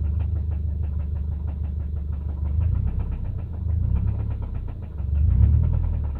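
2005 Subaru EJ253 naturally aspirated 2.5-litre flat-four engine running with a horrible, regular knock, getting louder three times. The knock is taken to be rod knock, a failing connecting rod bearing.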